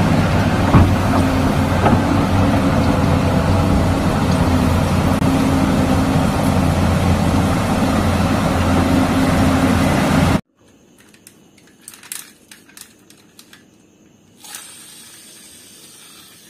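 Large crawler bulldozer's diesel engine running steadily under load as it pushes dirt with its blade. About ten seconds in it cuts off suddenly, leaving a few faint clicks and rustles of a plastic toy truck being handled.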